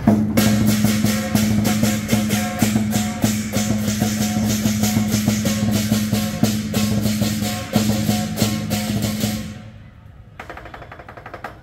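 Lion dance percussion: a big drum with cymbals playing a fast, driving rhythm, which fades out about nine and a half seconds in. A short, quieter spell of playing follows near the end.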